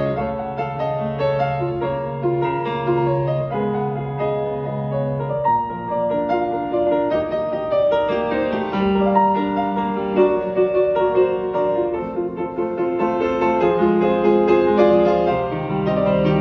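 Yamaha grand piano played solo: a melody line over sustained bass notes, the bass shifting to new notes about five and a half seconds in.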